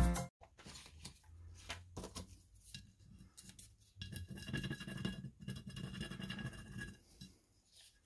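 Faint, intermittent scratchy rubbing of a plastic rub-on transfer sheet being pressed and rubbed down onto a glass jar by hand, with a few light clicks against the glass. The rubbing is busiest in the middle seconds.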